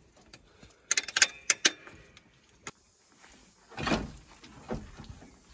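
Metal-on-metal clinks of a spanner and parts in a ute's engine bay, a quick run of them about a second in and one more a little later, then a longer scraping rub with a dull knock near four seconds as the radiator is shifted in its mount.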